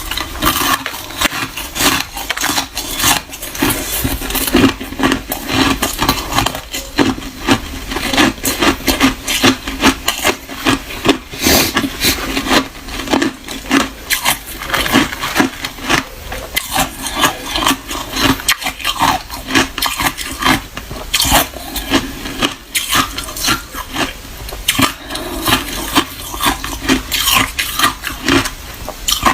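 Crushed ice being chewed close to the microphone: rapid, irregular crunching and cracking bites, a few each second.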